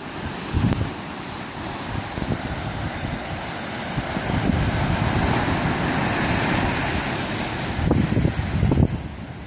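Ocean surf breaking and washing on a rocky shore: a steady rushing hiss. Wind buffets the microphone in gusts, strongest about half a second in and again near the end.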